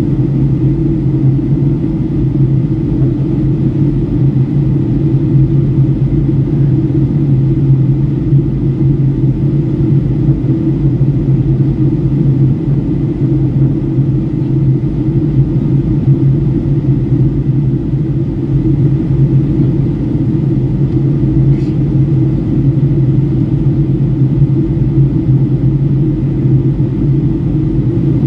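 Steady low drone of engine and airflow noise heard inside the cabin of a Boeing 757-300 airliner in flight.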